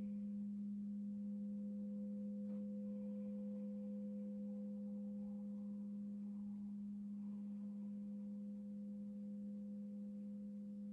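Crystal singing bowl ringing with one steady low tone and a fainter higher overtone, fading very slowly.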